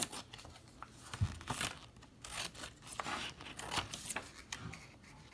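Scissors snipping through printer paper in a series of irregular cuts, with the paper rustling and crinkling as the label's white edges are trimmed off.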